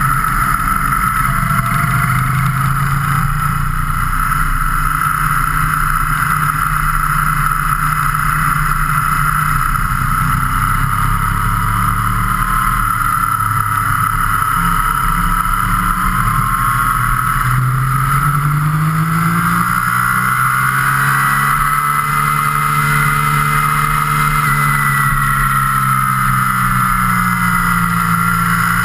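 Motorcycle engine running at road speed with steady wind rush; the engine note climbs in pitch a little past halfway as the bike speeds up, then holds.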